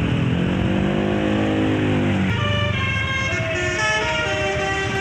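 Bus telolet musical air horn (Basuri V3 type) playing a tune of short tones at changing pitches, starting about two seconds in. Before it, a lower pitched tone rises and falls, then cuts off abruptly.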